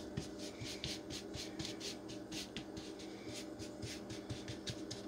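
Wooden spoon patting and scraping a crumbly oat, butter and pecan mixture across a metal baking sheet: quick scratchy strokes, about four a second.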